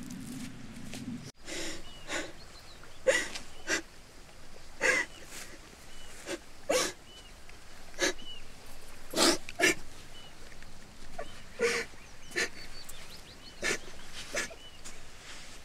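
A woman crying, sobbing in short gasping breaths and sniffs, irregularly about once a second.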